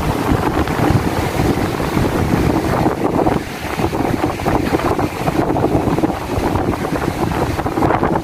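Strong wind buffeting the microphone in uneven gusts, with sea surf breaking behind it.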